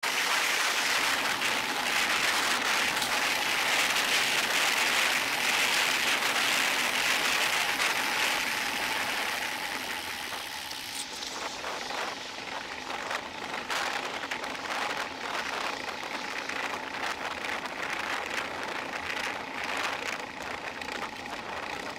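Steady hiss of tyres and passing traffic on a wet road, heard from a camera on a moving bicycle in the rain. It is louder for the first half, then drops a little, with scattered short knocks and rattles.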